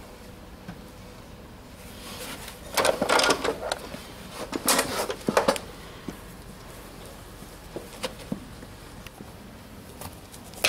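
Two spells of rapid scraping and clicking, each about a second long, from farrier's tools worked against a horse's hoof, followed by a few single clicks.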